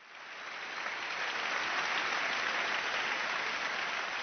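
Audience applauding, swelling over the first second or so and then holding steady.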